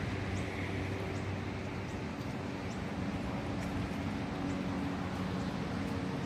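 Steady low hum of road traffic, with faint short high chirps of small birds now and then.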